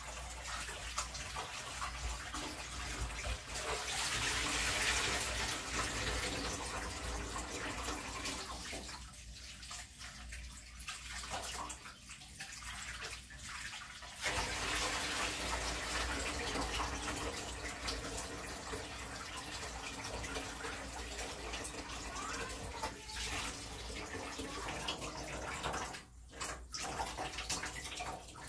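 Kitchen tap running into a stainless steel sink while gloved hands wash something under it, a steady rush of water that eases off for a few seconds about nine seconds in.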